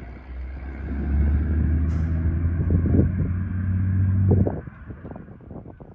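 A motor vehicle's engine running close by: a steady low hum that swells after about a second and cuts off sharply at about four and a half seconds.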